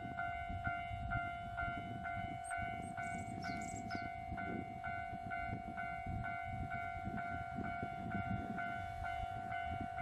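Japanese level-crossing warning bell ringing steadily, about two strikes a second, over the low rumble of an electric train pulling out of the station toward the crossing.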